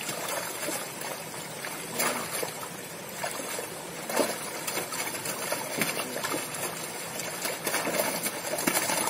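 Water trickling and splashing in shallow pond water around a keep net of carp as the fish are lifted out by hand, with several sharp splashes about two, four, six and eight seconds in.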